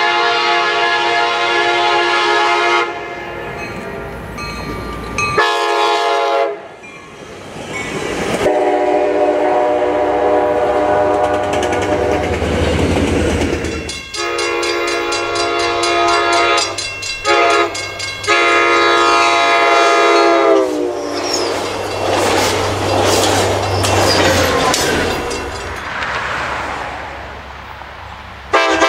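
Commuter train air horns sounding in a series of separate blasts, some long and some short, over the low hum of diesel locomotives and the rumble and wheel clatter of passing trains.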